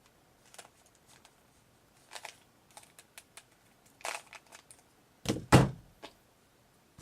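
Plastic Rubik's Cube layers being turned by hand, giving irregular clicking and clacking. Two louder knocks come about five and a half seconds in.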